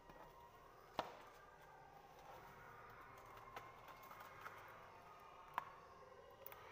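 Quiet handling of a plastic blister pack, with a sharp click about a second in and another near the end, and a few fainter ticks between.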